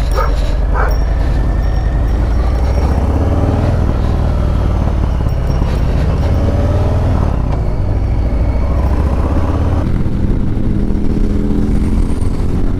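1987 Harley-Davidson Sportster's V-twin engine running loudly as the bike is ridden, its note changing about ten seconds in.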